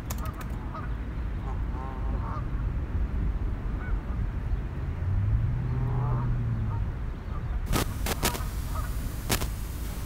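Outdoor ambience with short bird calls scattered over a low steady rumble. A few sharp clicks come near the end.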